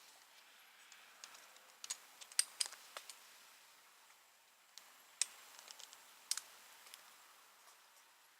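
Irregular light clicks and ticks, about a dozen sharp taps scattered over a faint hiss, the loudest a little over two seconds in and around five and six seconds in.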